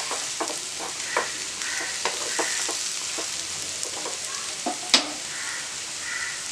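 Chicken pieces with capsicum and onion sizzling in a nonstick frying pan as a wooden spatula stirs them: a steady sizzle with short spatula knocks and scrapes against the pan, and one sharp clack about five seconds in.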